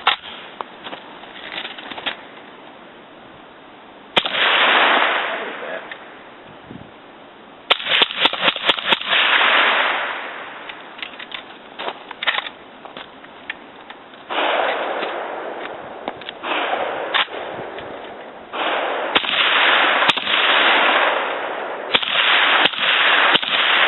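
Suppressed 7.62x39 AK-47 pistol with an 8-inch barrel and a SAS stainless .30 cal suppressor, fired several times. Each report starts sharply and trails off over a second or two, with smaller clicks in between.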